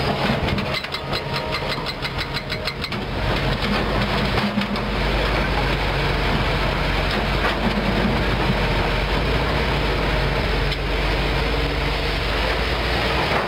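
Kobelco SK200 hydraulic excavator's diesel engine running as the machine swings and works on a rock pile. A fast run of clicks or rattles comes in the first three seconds, then a steady deep rumble takes over from about four and a half seconds in.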